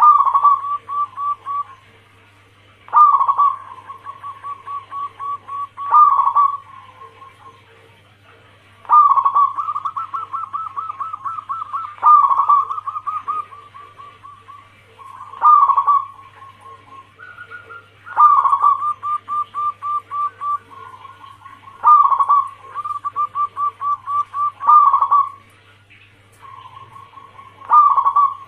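Zebra dove (perkutut) cooing its song over and over. Each phrase opens with a loud note and runs into a rapid, even trill of short coos, and a new phrase comes about every three seconds.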